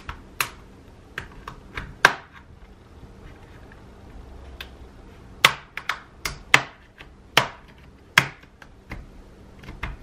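The plastic snap clips holding an HP Chromebook 11 G3's palm rest to its bottom case clicking and snapping as a pry tool works along the seam. A dozen or so sharp clicks come at irregular intervals.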